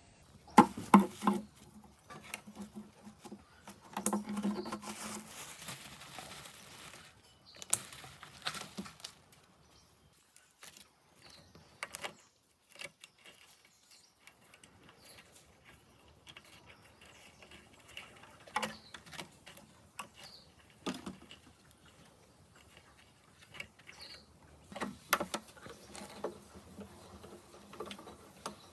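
Quiet workshop handling sounds: scattered light clicks, taps and knocks of metal parts and hand tools, with a stretch of soft rustling about four to seven seconds in.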